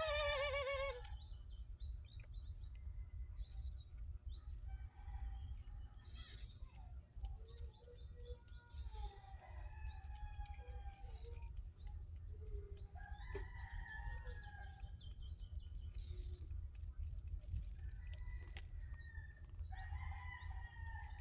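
Outdoor rural ambience: birds chirping on and off and chickens calling, with a rooster crowing in the first second. A steady low rumble runs underneath.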